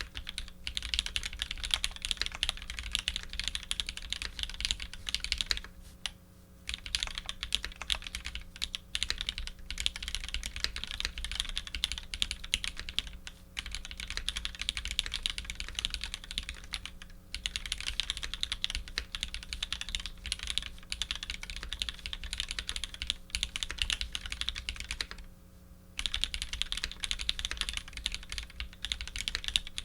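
Matrix 2.0 Add custom mechanical keyboard with lubed vintage Cherry MX Black linear switches on an aluminium plate, under GMK keycaps, typed on in fast continuous runs of keystrokes. The typing stops briefly a few times.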